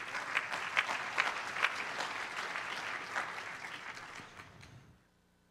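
Congregation applauding, the clapping fading out near the end.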